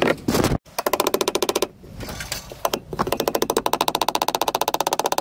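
Plastic electrical junction box being tapped and nailed into a shed wall through its captive nails: very rapid, machine-like runs of sharp knocks with short breaks between them, the longest run starting about three seconds in.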